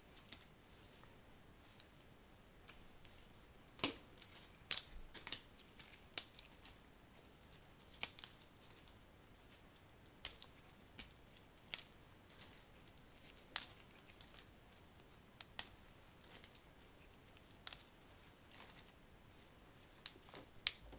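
Flower stems and leaves being snipped and handled: scattered crisp snips and clicks, irregular and a second or two apart, over a quiet room.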